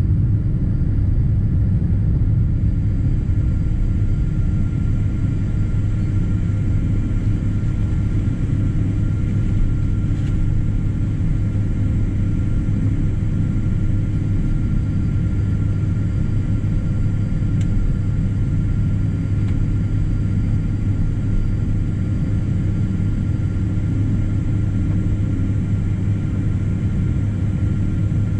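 Boeing 777-200 airliner's engines running steadily, heard from inside the cabin: an even low rumble with a faint steady whine above it.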